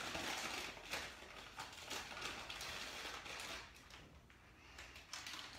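Faint rustling and scraping as flour is scooped from a flour bag with a measuring cup and tipped into a stainless steel mixing bowl, with a few soft taps. It fades to near silence about four seconds in.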